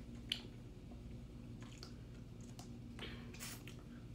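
Faint drinking and handling sounds from a plastic drink bottle: a sharp click shortly after the start and a wet, squishy sip about three seconds in, over a steady low hum.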